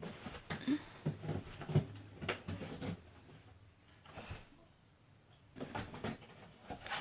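Faint handling sounds of unboxing: light knocks, clicks and rustles as a small crystal and its packaging are handled, with a quieter pause in the middle.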